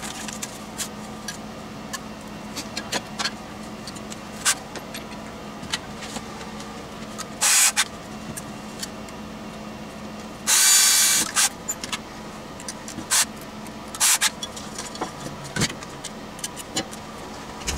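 A cordless drill driving screws into an aluminium project box in two short bursts, a brief one about seven seconds in and a longer one of about a second a few seconds later. Between them, clicks and clinks of small metal parts and the box being handled, over a steady low hum.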